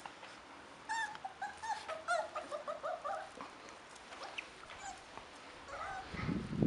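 Puppies whimpering in a quick run of short, high squeaks starting about a second in, thinning to a few fainter ones, with a rustle near the end.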